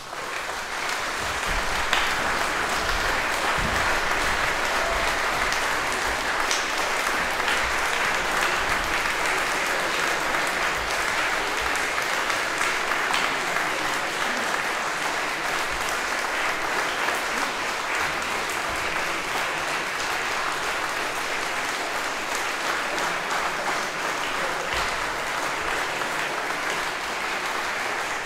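Concert audience applauding: dense clapping that starts suddenly and goes on steadily, easing slightly in the second half.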